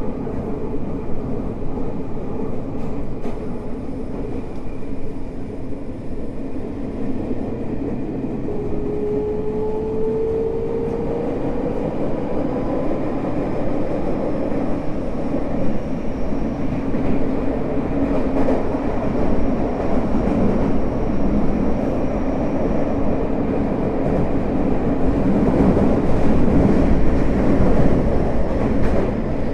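Interior running noise of a Tokyo Metro 05 series subway car with a Mitsubishi IGBT-VVVF traction inverter: a steady rumble of wheels on rail and motors. A thin rising whine from the traction drive comes in about nine seconds in and climbs for a few seconds, and the running noise grows louder near the end.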